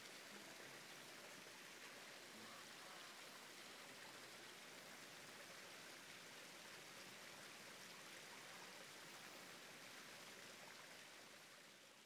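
Faint, steady rush of a creek running over a small rocky cascade, fading out at the end.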